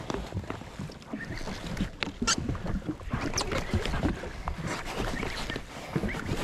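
Water slapping against a stationary jet ski's hull, with wind buffeting the microphone and irregular small knocks and clicks as a spinning reel is wound in against a fish.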